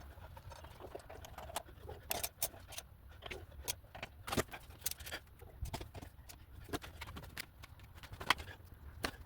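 Irregular light clicks and knocks of hand tools and metal brake parts being handled as new pads are fitted into a BMW R1200RT motorcycle's front brake caliper.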